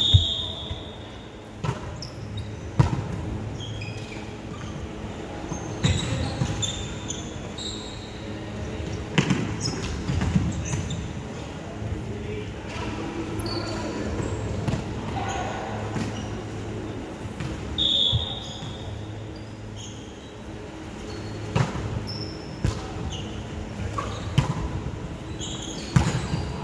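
Indoor volleyball rally: sharp slaps of hands and arms striking the ball at irregular intervals, with a louder hit near the end as a player spikes at the net. Sneakers squeak briefly on the wooden court and players call out, all echoing in a large hall.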